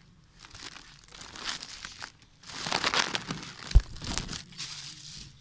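Thin plastic shopping bag crinkling and rustling as it is handled, loudest in the second half, with one dull thump about two-thirds of the way through.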